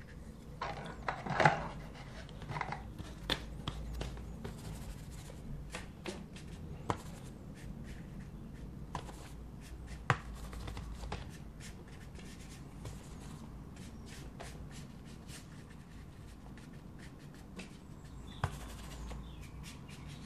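Paintbrush working on watercolour paper: soft rubbing and scrubbing strokes, with scattered light clicks and taps as brushes are handled. The loudest is a brief rub about a second and a half in.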